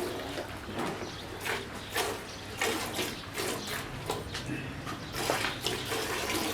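Murrah buffalo being milked by hand: jets of milk squirting into a pail in short hissing strokes, about two a second.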